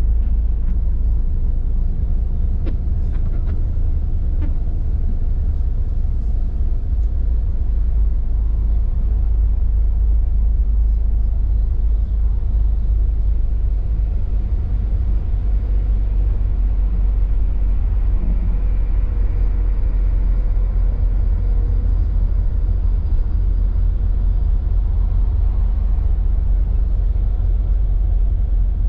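Intercity coach driving on a rain-soaked highway, heard from inside the cab: a steady low rumble of engine and road with a constant hiss over it.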